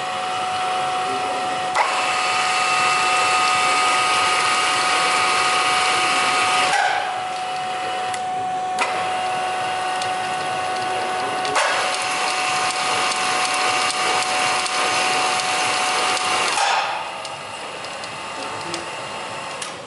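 Steff 2044 four-roller power feeder running: its electric motor and gearbox make a steady mechanical whine. The sound changes abruptly several times as the feed speed is switched, with a click at some of the changes, and it is quieter near the end.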